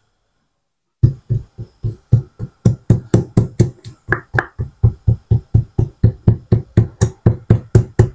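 Wooden pestle pounding ginger and garlic in a stone mortar: steady dull thuds, about three to four a second, starting about a second in.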